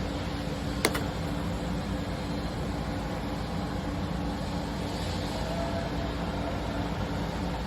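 Steady mechanical hum with a constant low tone, and one sharp click a little under a second in.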